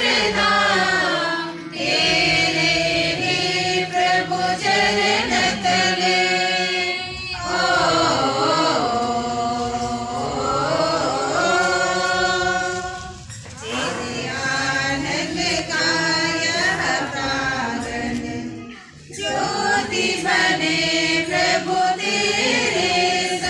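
A group of voices singing a hymn together, in long held phrases with short breaks between them every five or six seconds.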